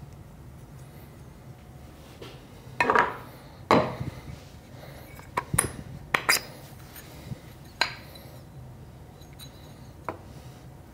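Hard metal parts of a DF83 coffee grinder clinking and knocking as they are handled and fitted at the burr chamber during reassembly. There are several sharp clacks, the loudest about three and four seconds in, and a few lighter ones later.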